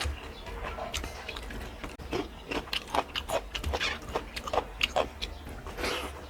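A person chewing a mouthful of food close to the microphone, with wet lip-smacking and mouth clicks that come thick and fast between about two and five seconds in.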